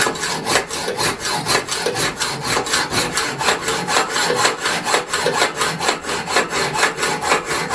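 Hand saw cutting through metal rivet stock to length, in quick, even back-and-forth strokes, several a second.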